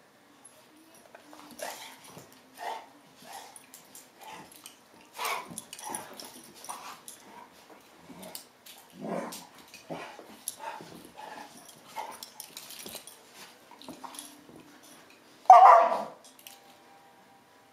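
Two dogs, an adult and a puppy, play-fighting: a run of short, irregular growls, yips and scuffles, with one loud bark near the end.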